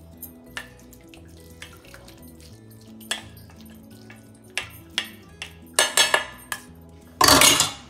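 A spoon pressing and scraping cooked leaves in a stainless-steel strainer, with scattered clinks of spoon on metal and a louder scrape about seven seconds in. Soft background music runs underneath.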